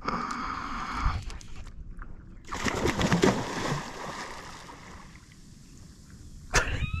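A hooked fish thrashes and splashes at the water's surface, fought on a bent fly rod from a paddleboard, with bouts of splashing noise. A sharp knock comes near the end, followed by a brief squeak.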